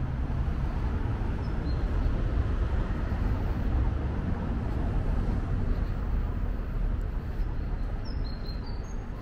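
Steady rumble of passing city street traffic, with a few short high bird chirps near the end.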